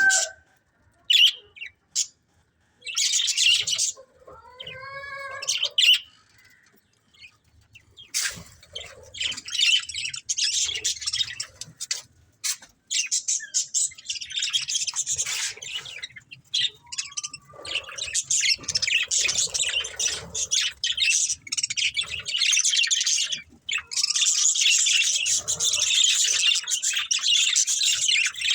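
Budgerigars chirping and chattering: scattered calls with short gaps at first, then a continuous busy warble of high chirps from about eight seconds in.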